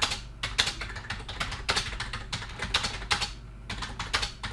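Typing on a computer keyboard: a quick, irregular run of keystrokes with a short pause near the end.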